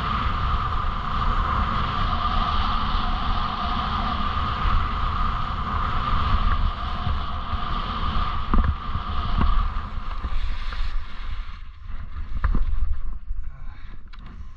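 Wind buffeting the microphone during a fast run down a groomed slope, with the steady scrape of sliding over packed snow and a few sharp clicks after about eight seconds. The noise thins out after about eleven seconds as the descent slows to a stop.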